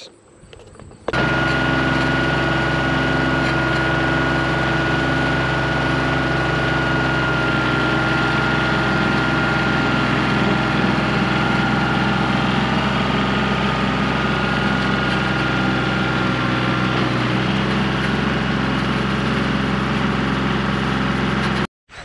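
New Holland 1720 compact tractor's diesel engine running steadily at close range, with a thin high whine over it. It starts suddenly about a second in and cuts off just before the end.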